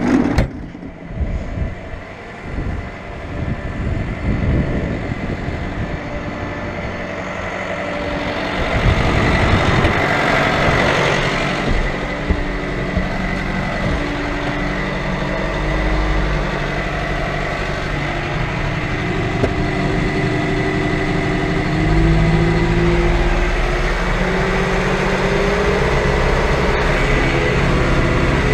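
Diesel engine of harvest machinery running steadily, with a thin steady whine above it. One tone climbs gradually in pitch over the last several seconds.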